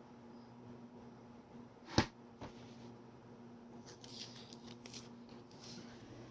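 A hobby knife and fingers picking at small laser-cut wood pieces and peeling their paper masking: faint scratching and rustling, with one sharp click about two seconds in, over a low steady hum.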